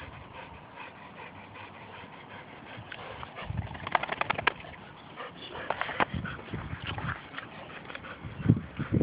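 Dogs at rough play: two short flurries of quick clicking and scuffling sounds around the middle, over a low steady background.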